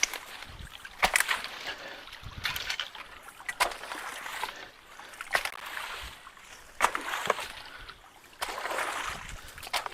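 Water splashing and sloshing in a string of separate strokes, about one every second or so, as clogging debris is pulled out of the water in front of a culvert's outlet.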